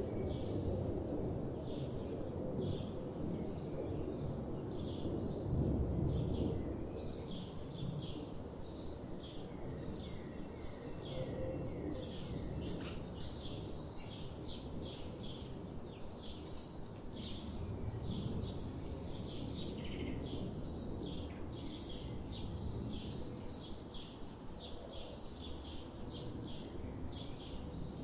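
Many small birds chirping at once, a dense stream of short high chirps, over a low background rumble of outdoor noise that is heavier in the first few seconds.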